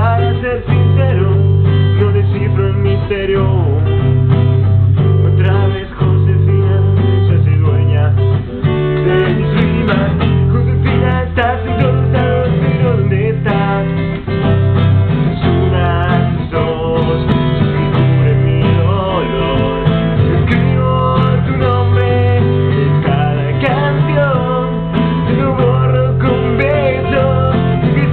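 Acoustic guitar strummed through a steady rock-pop chord progression, the chords changing every second or two, with a man's singing voice at times.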